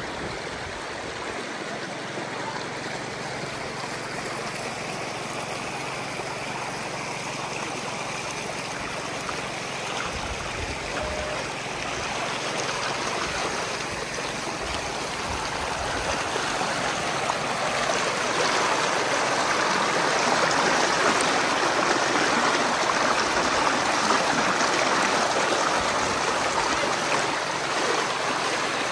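Rocky jungle stream rushing over stones, a steady rush of water that grows louder about halfway through.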